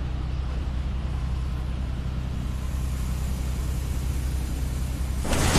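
Steady low drone of an airship's engines, heard from inside its metal cabin, under a faint hiss. Near the end a loud rush of noise swells in.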